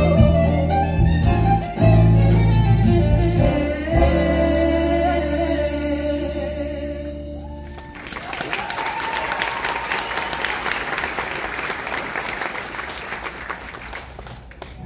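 A song with a woman singing, ending on a held final note about eight seconds in, followed by an audience applauding that tapers off near the end.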